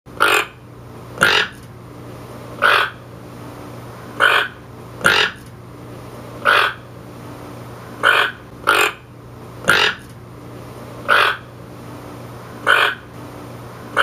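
A toucan giving short, harsh, croaking alarm calls, about one every second and a half, some in quick pairs. A faint low steady hum runs beneath.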